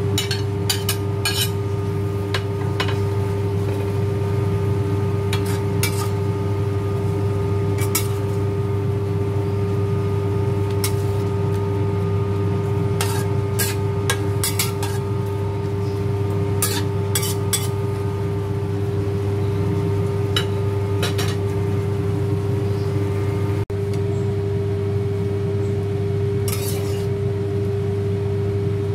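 Metal spatula scraping and clinking against a stainless steel wok while shrimp, onion and scallions are stir-fried, in short scattered strikes. A steady hum with a constant tone runs underneath.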